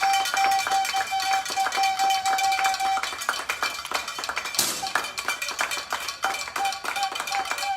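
Spectators clapping in a dense run of claps, with a steady pulsing electronic tone under it for the first three seconds and again near the end. A short burst of hiss comes about four and a half seconds in.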